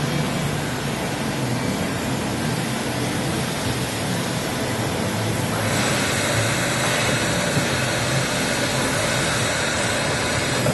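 AJAX fixed-column CNC boring machine running: a steady low hum, joined about halfway through by a higher hiss that stops near the end.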